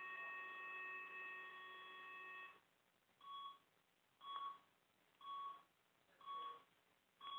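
Faint electronic beeping from the pulsed-field ablation equipment as energy delivery is switched on: one steady tone lasting about two and a half seconds, then short beeps about once a second.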